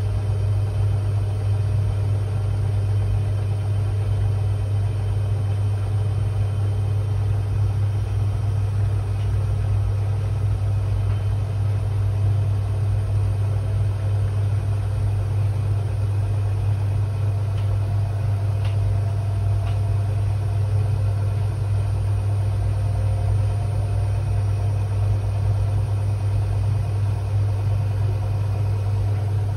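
Washing machine running on a quick 30 °C programme, a steady low hum with no change in pace.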